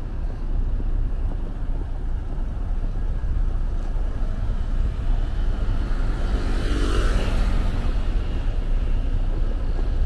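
Steady low rumble of street traffic. A motorcycle passes close by about seven seconds in, its engine getting louder and then fading away.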